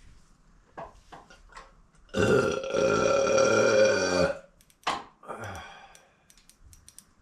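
A person belching loudly, one long drawn-out burp of about two seconds, with a few light clicks of tools before and after it.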